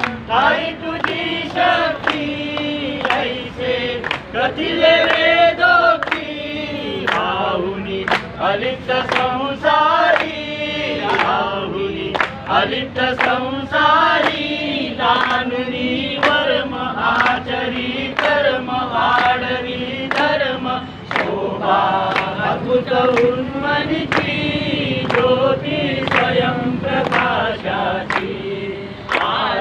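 A group of men and women singing a devotional bhajan together, clapping their hands in time to the beat.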